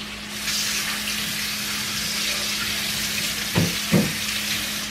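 Kitchen tap running into a sink for a few seconds, a steady rushing hiss that starts suddenly, over pork sizzling in a frying pan. Two short knocks come near the end.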